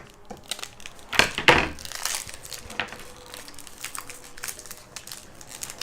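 Plastic toy packaging being handled and opened: crinkling and tearing, with a louder rustle about a second in, then scattered small clicks and rustles.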